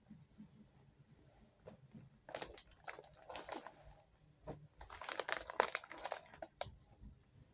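Plastic packaging crinkling and rustling as it is handled, in two bouts: one about two seconds in and a louder one around five seconds in.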